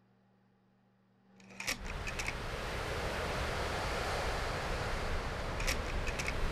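Steady rushing wind noise with a heavy low rumble, like a storm, setting in about a second and a half in after near silence with a faint hum. A short cluster of sharp clicks comes just as it starts and again near the end.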